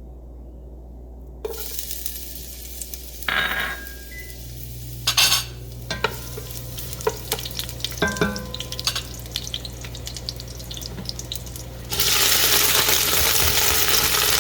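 Garlic and ginger sizzling in hot oil in a pot as they are stirred, with a utensil clicking and knocking against the pan. The sizzle starts about a second and a half in. Near the end it turns much louder and fuller.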